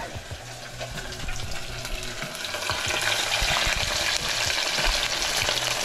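Flour-dredged razor wrasse (nabeta) deep-frying in hot oil in a saucepan: a dense, steady sizzle and crackle that grows louder over the first couple of seconds.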